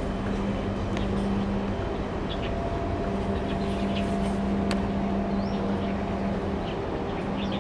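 Steady low drone and rumble of a large container ship's machinery as the ship passes close by, with a steady hum that drops out briefly twice.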